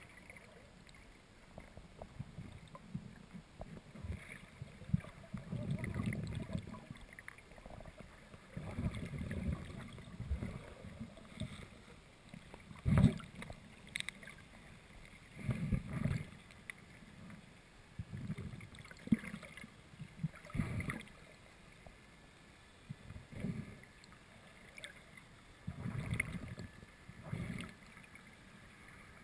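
Muffled water movement and handling noise on a GoPro's waterproof housing held underwater: low sloshing surges come and go every second or two, with a sharp knock about halfway through.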